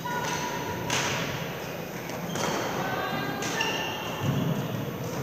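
Badminton rackets striking shuttlecocks: a few sharp cracks that echo around a large sports hall. Trainers make short high squeaks on the court floor between them.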